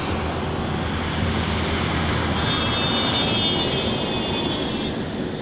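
A motor vehicle passing on the road: engine and road noise that swell toward the middle and ease off near the end, with a high whine in the middle of the pass.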